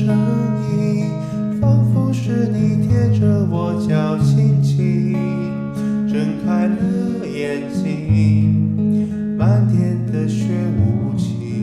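Acoustic guitar strummed through a chord progression while a man sings along, his voice carrying added reverb.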